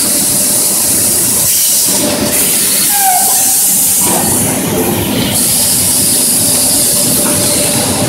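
Stainless steel circle edge deburring and washing machine running: a steady mechanical clatter under a loud high hiss that drops out briefly a couple of times.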